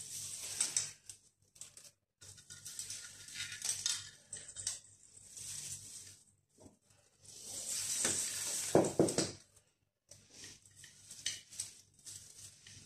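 Rustling of artificial Christmas tree branches and light clinks of ornaments as they are pushed and rearranged by hand, in uneven bursts, the loudest about eight seconds in.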